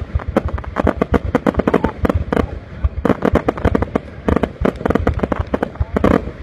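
Aerial fireworks going off in a rapid, dense series of bangs and crackles, with brief lulls about two and a half and five and a half seconds in.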